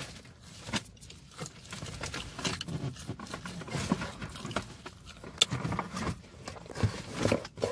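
Scattered clicks, taps and rustles of handling close to the microphone, irregular and without a steady rhythm, around a pizza box.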